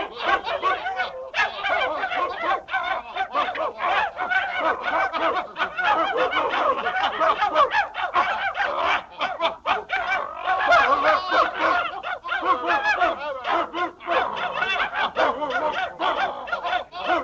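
A flock of fowl, like geese, honking and cackling without a break, with many calls overlapping.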